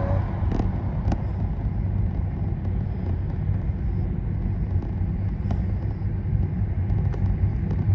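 A car driving along the road: a steady low rumble of engine and tyre noise, with a few faint clicks.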